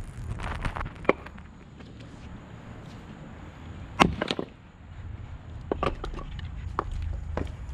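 Axe splitting a maple round: one sharp chop about four seconds in, followed by a brief clatter as the split halves fall. A lighter knock comes about a second in, and a few more light wooden knocks follow near the end.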